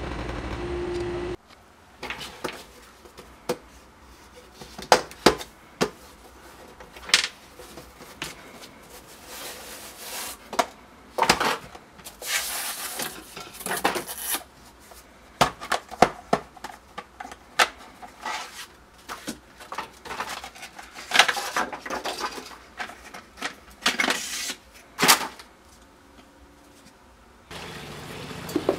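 Irregular clinks, clicks and knocks of small hard objects being handled, with short clattering runs. A steady hum stops suddenly about a second in and comes back near the end.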